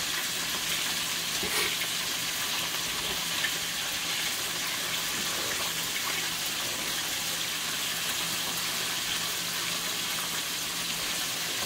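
Fish frying in oil in a skillet: a steady sizzle, with a faint click of metal tongs a couple of times.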